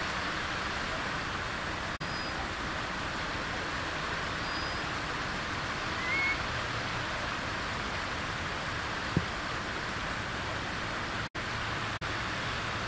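Small waves washing steadily over a shallow tidal mudflat, with a single short rising call from a far eastern curlew about six seconds in. A brief knock sounds once about nine seconds in.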